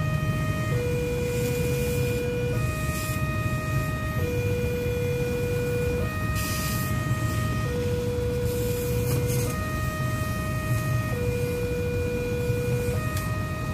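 Railway level-crossing warning alarm sounding a two-tone electronic signal that switches between a lower and a higher tone about every second and three-quarters, warning that a train is approaching. A constant low rumble of traffic runs underneath.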